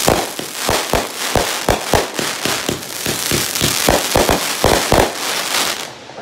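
Aerial fireworks going off: a quick, uneven string of bangs over a steady crackling hiss, easing off near the end.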